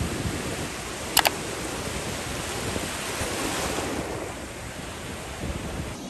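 Ocean surf washing through shallow foamy water with waves breaking beyond, as a steady rushing noise, with some wind on the microphone. Two sharp clicks come close together about a second in.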